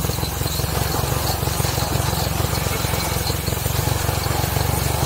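Small motorcycle engine of a sidecar tricycle running steadily while it rides along, with an even hiss of wind over the microphone.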